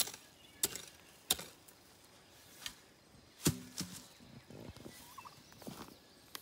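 Long-handled garden hoe chopping into damp soil: a series of sharp strikes about every half second to second. One strike about halfway through is followed by a short, low ringing tone.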